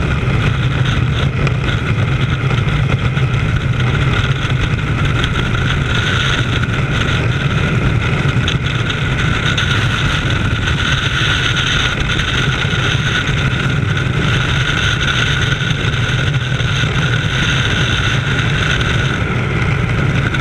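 Steady, loud wind rush of skydiving freefall blowing over a helmet-mounted camera's microphone.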